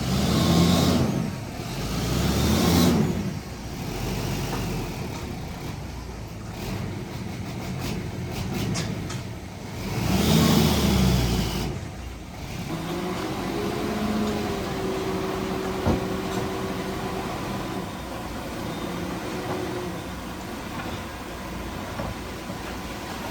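Heavy diesel earthmoving machinery working: the engine surges loudly three times, rising and falling in pitch, then settles into steadier running with a held whine.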